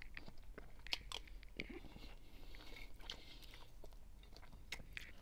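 Quiet close-up chewing and wet mouth sounds of a person eating a mouthful of rice, with a few soft clicks scattered through.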